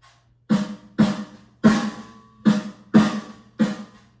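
Snare drum sound from an old Roland electronic drum kit set to a '70s rock' kit with bleed, struck six times at uneven spacing, each hit ringing briefly. A faint steady low hum lies underneath.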